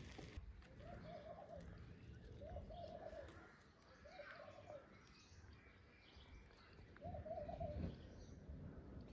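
A dove cooing four times in short, wavering coos a second or two apart, with faint chirps of small birds behind it and a low rumble near the end.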